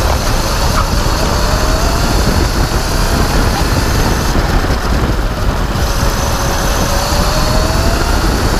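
Electric racing kart at speed: loud wind rush and road rumble, with a faint electric motor whine that falls and rises twice as the kart slows and picks up speed again.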